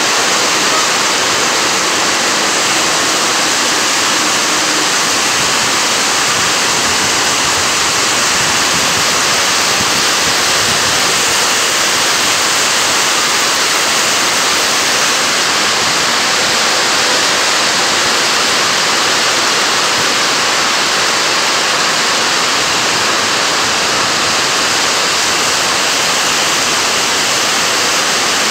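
Heavy rain pouring down, a loud steady hiss that does not let up.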